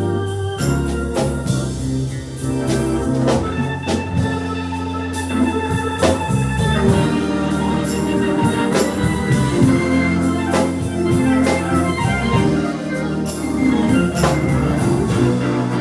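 Live band playing an instrumental passage: sustained organ chords over a drum kit keeping a steady beat.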